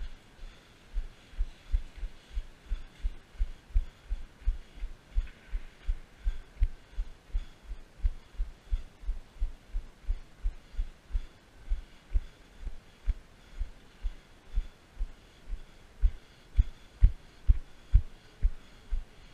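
Muffled footfall thuds of a runner jogging down stadium steps, about three a second, picked up through a body-worn action camera; a few heavier thuds come near the end.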